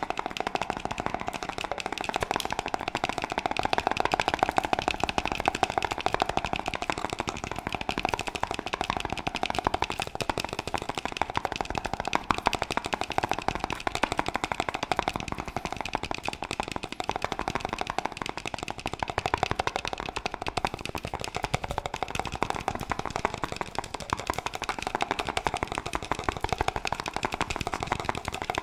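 Rapid fingertip tapping on a jar with a black lid, held right against the microphone: quick taps, many a second, in an unbroken run.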